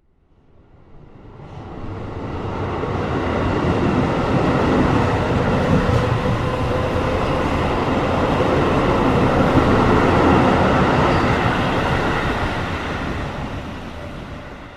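Train rolling past: the rumble of wheels and cars grows from nothing, holds loud through the middle and dies away near the end.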